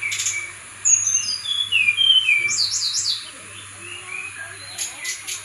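Brown-chested jungle flycatcher singing: a quick string of short, high, down-slurred whistled notes, with a few harsher scratchy notes near the start and end, over a steady high hiss.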